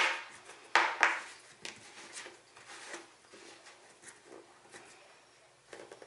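Plastic rubbing and scraping as a PVC fitting is pushed and twisted into a tight hole drilled in a plastic box, with a louder scrape about a second in, then small clicks and rubs that die away.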